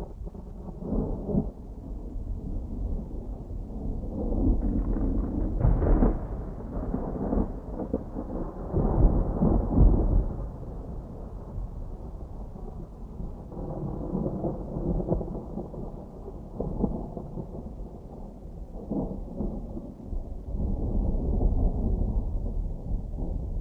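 Distant thunder rolling and rumbling in long waves, with the strongest peals about five and nine seconds in and another swell near the end.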